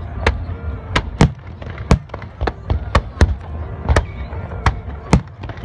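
Aerial fireworks bursting overhead: a rapid, irregular string of about a dozen sharp bangs over a steady low rumble.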